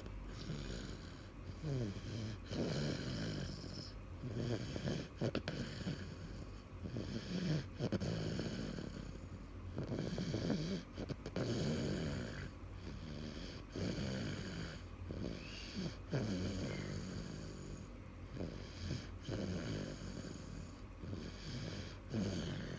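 Sleeping baby snoring, a rough snore with each breath, repeating about every one to two seconds.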